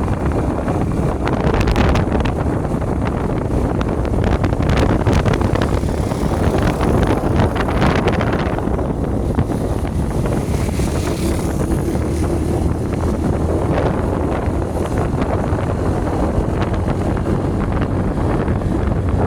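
Wind buffeting the microphone over a steady engine rumble from a moving vehicle, with constant crackling.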